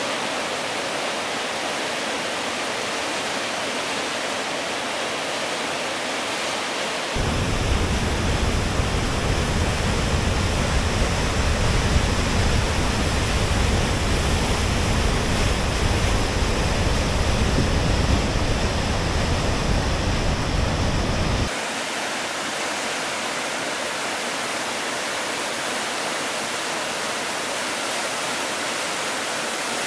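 Steady rushing of a fast, silty river pouring through white-water rapids and falls over rock. From about seven seconds in until about twenty-one seconds it becomes louder, with a deeper rumble, and it drops back abruptly.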